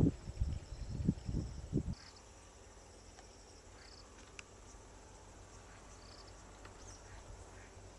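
Insects chirping in short, high-pitched bursts about once a second over a quiet background. Several low thumps come in the first two seconds.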